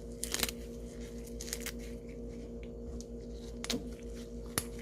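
Fresh chicory leaves torn apart by hand into bite-size pieces: a series of short, crisp snaps and rips at uneven intervals. A steady low hum runs underneath.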